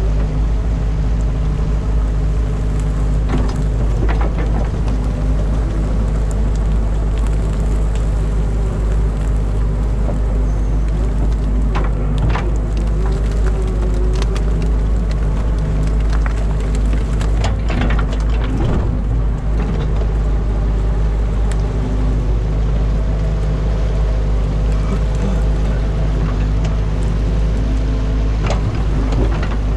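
Excavator's diesel engine running steadily under load, with scattered knocks and cracks as the bucket breaks and scrapes through a beaver dam of mud and sticks.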